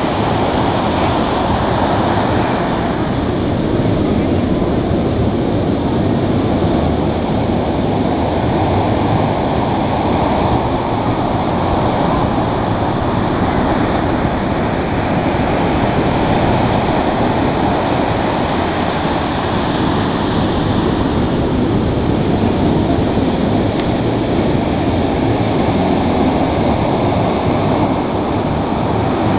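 Ocean surf breaking and washing up the sand close by, a loud, steady rushing noise with no clear rise and fall between waves.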